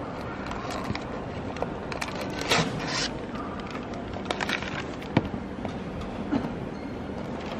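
Steady background hum of a large airport terminal hall with scattered clicks and clatters; a cluster of clatters comes a little over two seconds in and a single sharp knock about five seconds in.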